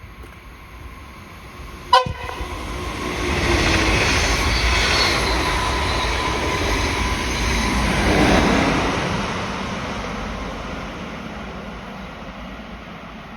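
Train horn giving one short, loud toot about two seconds in, then the train rumbling past, swelling to a peak about eight seconds in and fading away.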